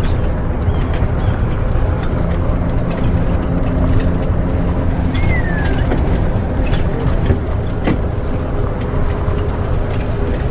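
A converted bus motorhome's diesel engine running as it drives, heard from inside the cab: a steady low hum under road noise, with frequent small rattles and clicks from the body and fittings.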